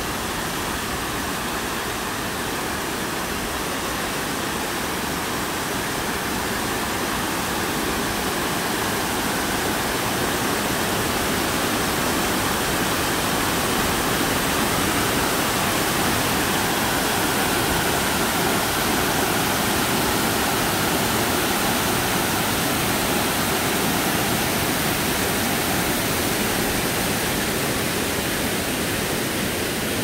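Waterfall: white water rushing steadily down a broad sloping rock slab, a little louder in the middle.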